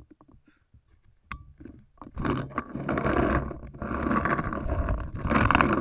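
A sharp click about a second in. From about two seconds in, loud rubbing and rustling right at the microphone, from cloth and netting brushing against the gun-mounted camera.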